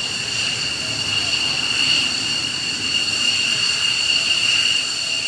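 Fighter jet's engines running at taxi power as it rolls along the runway: a loud, steady high-pitched whine over a low rumble.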